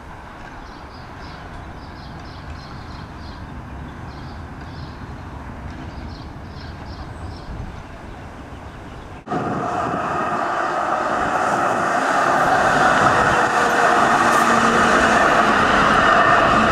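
Melbourne tram running on its rails: a low rumble while it is still some way off, then, after a sudden jump about nine seconds in, loud wheel-and-motor running noise with steady tones as it passes close by.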